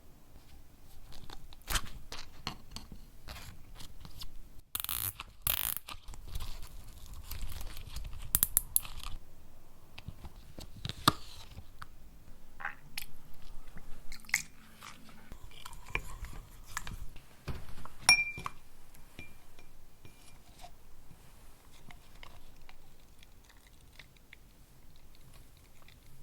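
Painting work on canvas: scraping, dabbing strokes with many scattered clicks and knocks, and short noisy bursts about five and eight seconds in.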